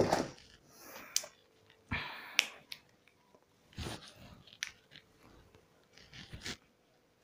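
A few scattered small clicks and short soft rustles, about a second apart or more, with quiet between them.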